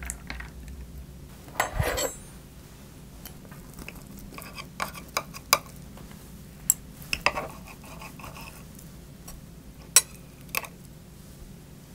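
Metal knife and fork clinking and scraping on a ceramic plate while cutting French toast: scattered sharp clinks, the loudest near the end, with a short clatter about two seconds in.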